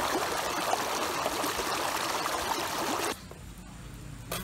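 Water running or pouring steadily, cutting off abruptly about three seconds in, followed by a couple of sharp clicks near the end.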